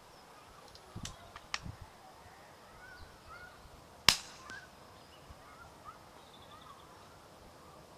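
A single shot from a suppressed .22 rimfire rifle firing a CB long cartridge about four seconds in: one short, sharp report with a brief ring-off. A few faint clicks come a couple of seconds before it.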